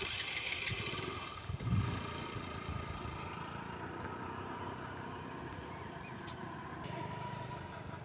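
A small vehicle engine running steadily, with a low thump about two seconds in.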